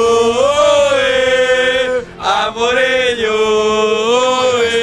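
Group of men singing a football chant in unison: two long, drawn-out phrases with a brief break for breath about two seconds in.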